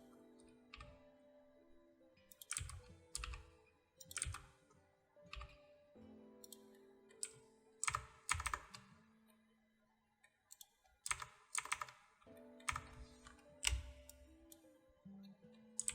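Computer keyboard keys and mouse buttons clicking in irregular clusters of taps, over quiet background music with soft held notes.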